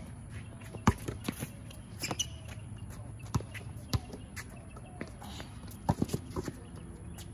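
Basketball being dribbled on an outdoor hard court: irregular sharp bounces, with players' footsteps.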